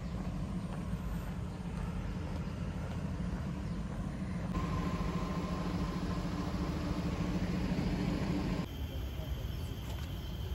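Steady low background rumble with no distinct events, changing abruptly in character twice, about four and a half and eight and a half seconds in, where the footage is cut.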